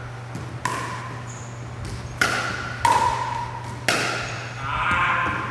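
Pickleball rally: paddles striking the hard plastic ball, four sharp ringing pops spaced about half a second to a second and a half apart, then a softer sound near the end.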